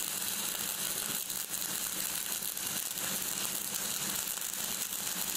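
Stick (MMA) welding arc burning on a 6013 electrode, crackling and sizzling steadily as the weld is laid.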